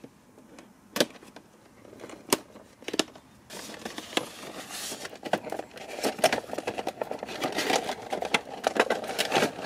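Packing tape on a cardboard toy box slit with a hobby blade, giving a few sharp clicks, then the box flap and its clear plastic window tray rustling and crinkling as the box is opened, louder in the second half.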